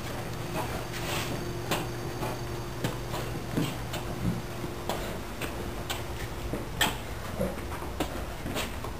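Footsteps on a hard floor: irregular clicks and taps as a large dog with a splinted hind leg walks beside its handler, over a steady low room hum.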